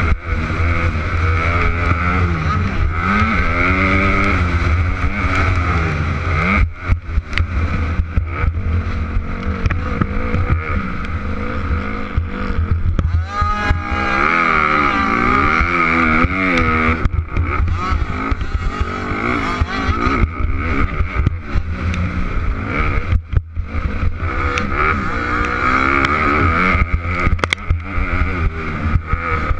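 Dirt bike engine at race pace, heard from the rider's own bike: the engine note rises and falls repeatedly as it is revved and shifted. There are a few brief drops in the sound.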